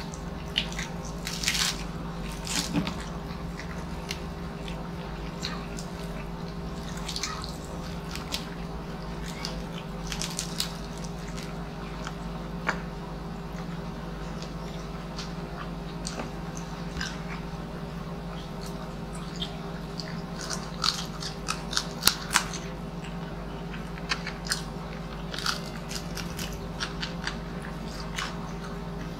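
Close-miked eating of crispy pata (deep-fried pork hock) by hand: scattered bites, crunches and chewing mouth sounds, with a louder run of crunches about two thirds of the way through, over a steady low hum.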